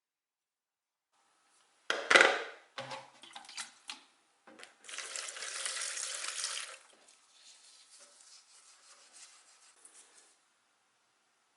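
A clatter and a few knocks of objects being handled, then about two seconds of running water, trailing off into faint splashing and handling sounds.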